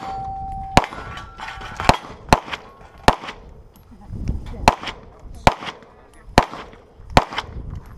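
A shot timer beeps once at the start, then a pistol fires about eight shots at an uneven pace, some in quick pairs, with faint metallic ringing, typical of steel targets, after some of the early shots.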